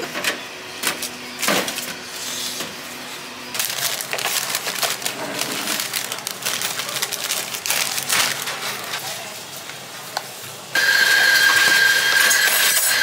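Kitchen handling sounds: sharp knocks and clatter of a perforated metal baking tray as buns are set on it, then rustling of paper bakery boxes and tissue wrapping being handled and folded. Near the end a loud steady rushing noise with a thin high whistle starts suddenly and runs for over two seconds; its source is not shown.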